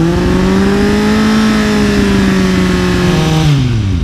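Kawasaki motorcycle engine with a twin-tube Laser aftermarket exhaust held at a steady 5000 rpm for a static sound-level test. It drops back toward idle near the end as the throttle is released.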